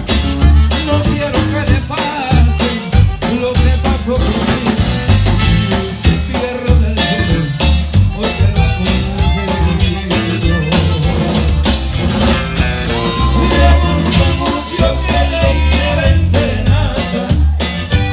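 Live Tejano band music: a drum kit keeps a steady beat under acoustic guitar, with a voice singing.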